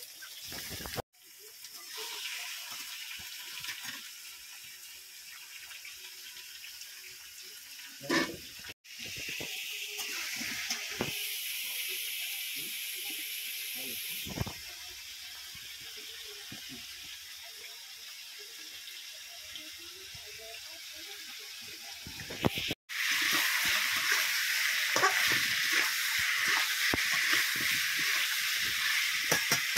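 Raw chicken sizzling in hot oil and fried onions in a kadhai, a steady frying hiss broken by several sudden cuts. The sizzle is loudest over the last several seconds.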